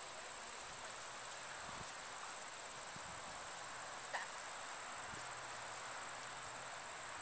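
Insects trilling: a steady, high-pitched, fast-pulsing buzz that carries on without a break, with one sharp click about four seconds in.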